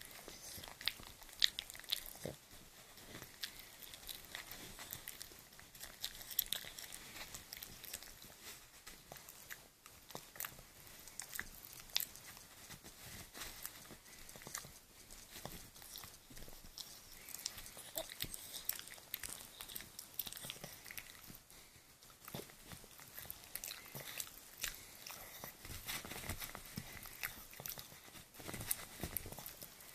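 A toothless Cavalier King Charles spaniel gumming a dental stick: irregular chewing clicks and soft crunches throughout.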